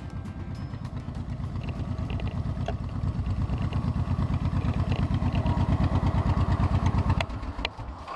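Motorcycle engine running at low speed with a low, even pulsing beat that grows louder, then drops away near the end.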